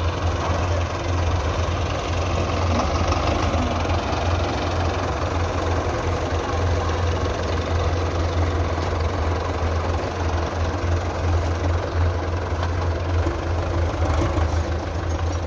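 Belarus tractor diesel engine running steadily, with no change in speed.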